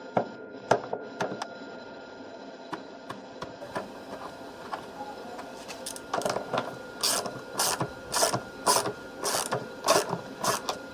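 Ratchet wrench with an 8mm socket clicking as it loosens the nut on a washing machine's heating element. There are a few clicks at first, then from about halfway a steady run of sharp clicks, about two a second.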